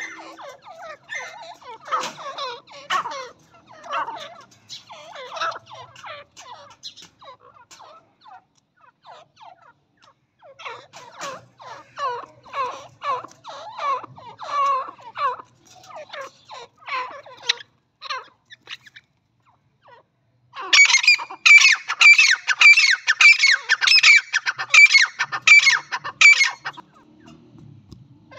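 Grey francolins calling in bouts of rapid, short repeated notes. The first two bouts are softer, and a much louder, shrill run of calls starts about two-thirds of the way in and stops abruptly shortly before the end.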